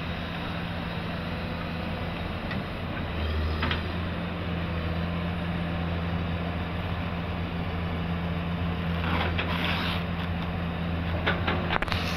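Komatsu hydraulic excavator's diesel engine running steadily under load as the machine swings and works. Near the end there is scraping and clatter as the bucket digs into a pile of loose material.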